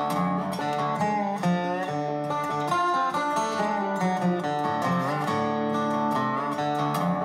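Background music led by plucked acoustic guitar, with a steady strummed rhythm and a few sliding notes.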